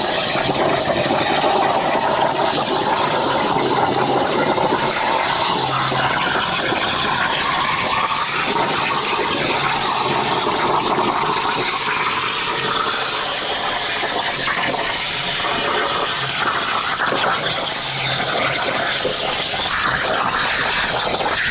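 Hypertherm Powermax 45 XP plasma cutter's arc hissing steadily as the CNC torch cuts through sheet steel.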